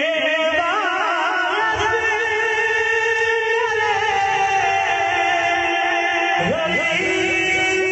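A male singer's voice singing a Punjabi devotional song in long, ornamented notes. A wavering phrase settles into one long held note, and a new phrase begins about six and a half seconds in.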